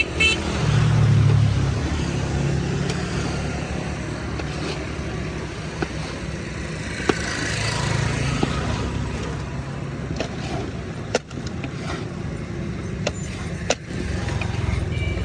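Road traffic passing: a steady rumble of vehicles that swells about a second in and again around eight seconds, with a few sharp clicks in the second half.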